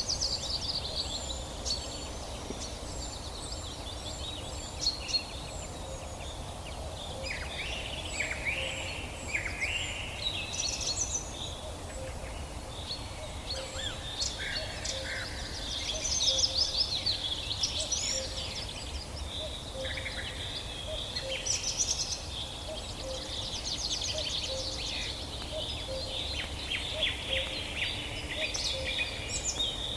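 A chorus of forest songbirds: many birds chirping and singing at once, with overlapping short calls, whistles and rapid trills, over a faint low rumble.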